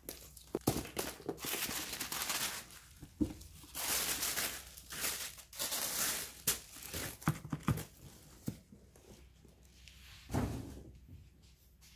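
Tissue paper rustling and crinkling as it is handled and lifted out of a gift box, loudest in the first half, with a dull thump about ten seconds in.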